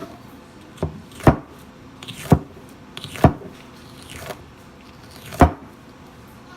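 Hand-forged cleaver made from a lawnmower blade chopping down in single sharp strokes: five chops, roughly one a second, with a longer pause before the last.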